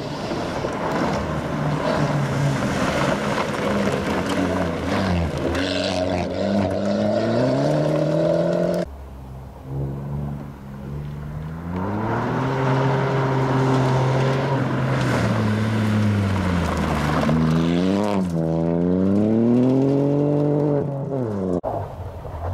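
Two rally cars on a loose gravel stage: a Fiat Grande Punto rally car accelerates away, its engine pitch climbing, until the sound cuts off suddenly just before the middle. A Ford Fiesta rally car then comes through, its engine rising and falling through the gears with quick blips of revs near the end, tyres on loose gravel beneath.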